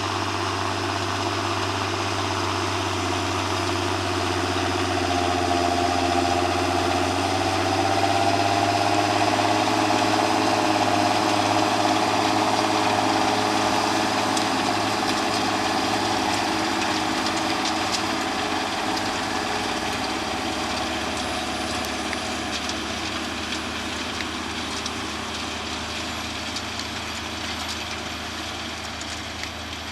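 Farm tractor's diesel engine running steadily while working a field, swelling in loudness and then fading away as the tractor passes.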